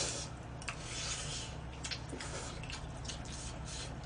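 Eating at a table: soft chewing and mouth noises with a few light clicks of chopsticks and forks against plastic takeaway containers, over a low steady hum.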